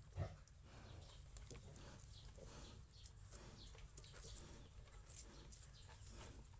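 Faint farmyard animal calls: short high squeaks and chirps scattered throughout, with a soft thump just after the start.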